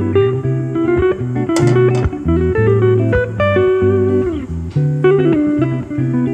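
Background music: a guitar-led instrumental over a steady low bass line.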